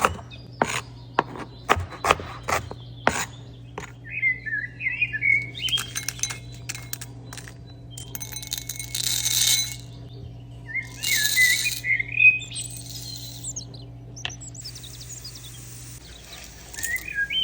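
Kitchen cooking sounds: a run of about seven sharp knocks in the first three seconds, then two bursts of hiss, each a second or two long. Birds chirp in the background, and a steady low hum runs until near the end.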